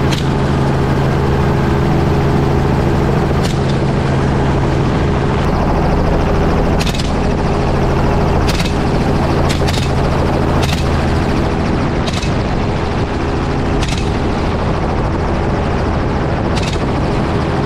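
Helicopter running steadily overhead while about ten gunshots ring out at irregular intervals, a second or two apart, fired from the aircraft during the hunt.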